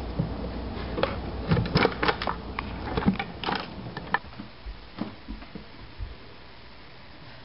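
A cat clambering about inside a wooden kitchen drawer: scattered taps, scrapes and rustles, thickest in the first four seconds and thinning out after that.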